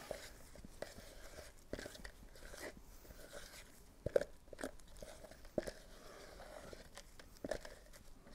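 Hardwood mixing stick stirring a stiff paste of epoxy and low-density filler in a plastic mixing pot: faint, irregular crunching and scraping, with sharp clicks where the stick knocks the pot, loudest about four seconds in.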